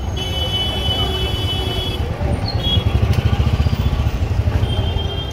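Busy street traffic, with a motor vehicle's engine running close by in a low rumble that throbs hardest about three seconds in.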